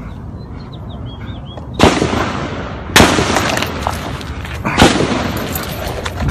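Three loud gunshots, about a second and then nearly two seconds apart, each followed by a long echoing tail.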